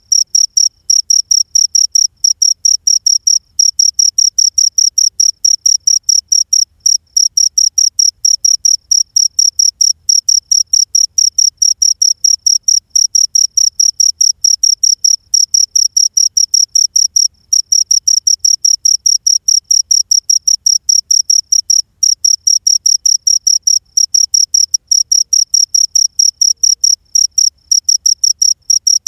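Cricket chirping: a continuous run of loud, high-pitched, evenly spaced chirps, with a few brief pauses.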